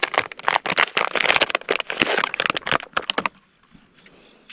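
Protective plastic packaging around LED headlight bulbs being handled and pulled open, a dense run of crinkling and crackling that stops about three seconds in.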